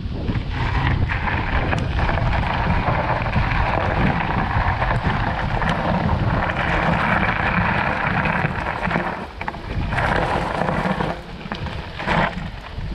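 Wind buffeting the microphone of a moving e-bike, a heavy low rumble with a rushing noise over it that eases off about nine seconds in and again near the end.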